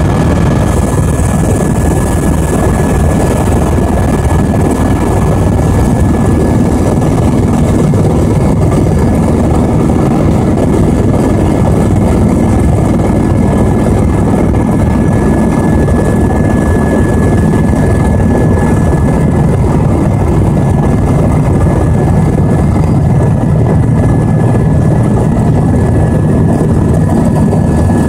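Helicopter in flight heard from inside the cabin: loud, steady rotor and engine noise with a thin, steady high whine over it.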